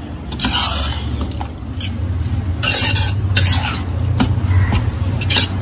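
A metal spoon stirring and scraping through a thick beetroot and lentil kootu in a pressure cooker pan, in short irregular strokes over a steady low hum.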